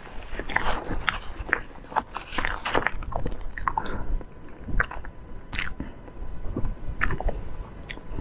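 A person chewing a mouthful of food close to a clip-on microphone, with many short, sharp clicks and crackles, several each second.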